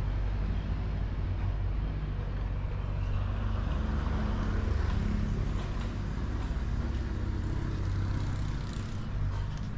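A motor running steadily: a constant low hum under an even outdoor noise.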